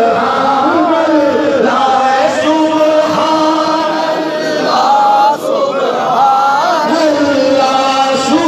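A man's voice chanting into a microphone in long, held melodic lines, with a brief break about five seconds in.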